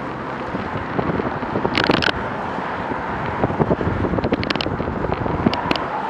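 Steady wind rush on a moving camera's microphone mixed with road and traffic noise, broken by several sharp clicks and rattles, loudest about two seconds in and again in a run around four to six seconds.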